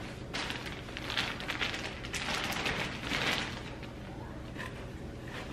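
Clear plastic zip-top bag crinkling and rustling as a fabric garment is pulled out of it. The crackles are dense at first and die down after about three and a half seconds.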